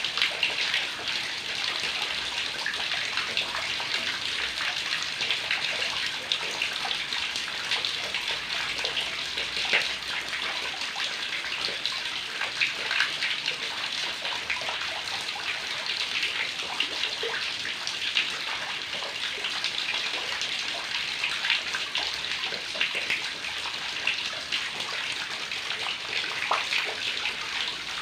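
Heavy rain falling: a steady, dense hiss of countless drops splashing and crackling on surfaces, with no let-up.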